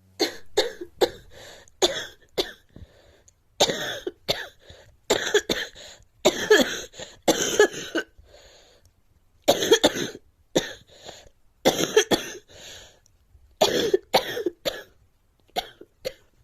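A girl coughing over and over, in short fits of a few coughs each with brief pauses between.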